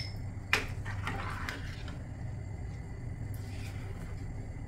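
A spatula knocks once against a stainless steel pan about half a second in, then stirs a thick yogurt curry with a few faint scrapes, over a steady low hum.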